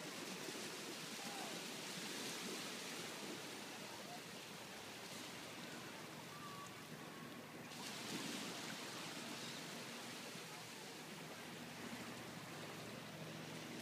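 Small waves washing on the shore, a steady even hiss. In the second half a faint steady low hum joins in.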